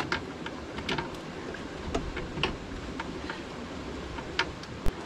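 Steel wrench working an engine mounting bolt, giving short, sharp metallic clicks spaced irregularly about once or twice a second.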